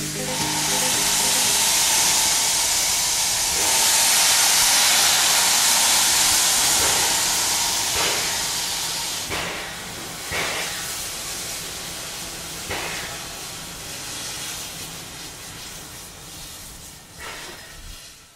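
Steam locomotive venting steam: a loud, steady hiss for about nine seconds, then quieter hissing broken by a few short separate blasts of steam, fading away near the end.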